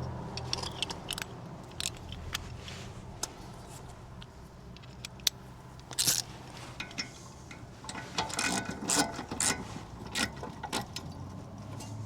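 Scattered metal clicks, taps and scrapes of tools and brake caliper parts being handled during reassembly, coming thicker about eight seconds in.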